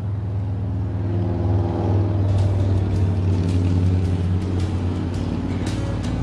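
Background music over a steady low rumble, with a light ticking beat coming in about two seconds in.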